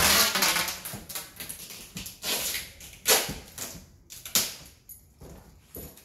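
Cardboard cartons being pushed and handled on a tiled floor: a longer scraping rustle near the start, then shorter rustles and knocks.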